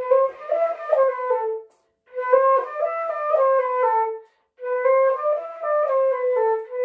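Transverse concert flute playing a practice run of eight notes, B-C-D-E-D-C-B-A, rising then falling. It is played three times in a row with short pauses between.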